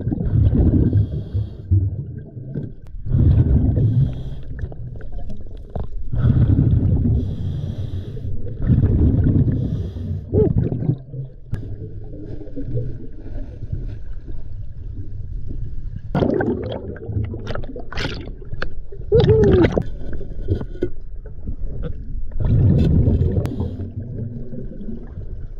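Scuba diver's exhaled breath bubbling out of the regulator, heard underwater as a bubbly rumble that comes back every three seconds or so. A cluster of sharp clicks sounds past the middle.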